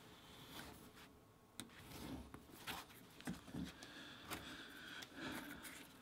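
Hobby knife cutting along the edge of vegetable-tanned leather on a cutting mat, then the trimmed piece being handled: faint, irregular scrapes, rubs and small clicks.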